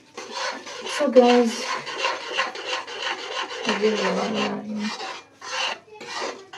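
Metal spoon scraping around a hot kadhai while stirring semolina halwa, in quick rhythmic strokes about three a second. A short pitched sound rises over the scraping about a second in and again around four seconds.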